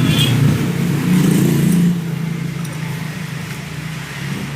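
A motor running with a steady low hum, louder for the first two seconds and then easing to a lower, even level.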